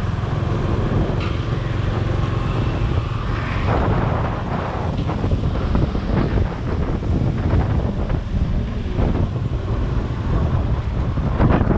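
Wind buffeting the microphone over a motor scooter's engine running steadily while it is ridden along a street.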